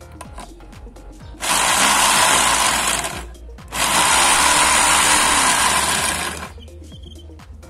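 Electric drill driving a step drill bit into a steel footrest bracket, enlarging a bolt hole. It runs in two bursts, about a second and a half in and again after a short pause, the second lasting nearly three seconds.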